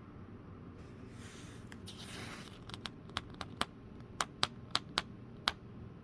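Hands sorting through and fitting small plastic Lego pieces. A soft rustle comes first, then about ten sharp plastic clicks over the next few seconds as pieces knock together and snap into place.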